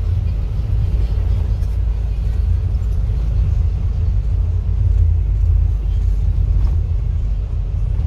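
Steady low rumble of a vehicle driving along a highway, heard from inside the cabin: engine and tyre-on-road noise.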